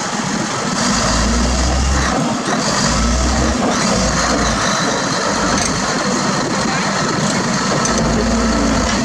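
Heavy diesel engine of earthmoving equipment running steadily, with a deep low rumble that swells several times.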